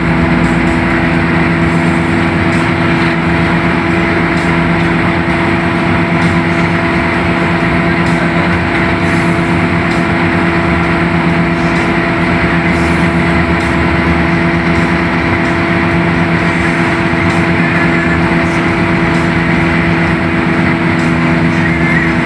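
Hino AK8 bus's diesel engine running steadily at cruising speed, heard loud from inside the driver's cab, with a constant drone and tyre and road noise underneath.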